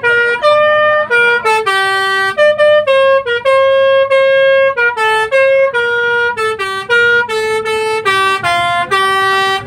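Bus's basuri-type 'telolet' multi-tone air horn playing a quick melody of short, steady, stepped notes.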